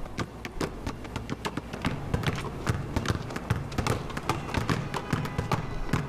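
Several basketballs dribbled in unison on an outdoor asphalt court, their bounces making a fast, busy percussion rhythm.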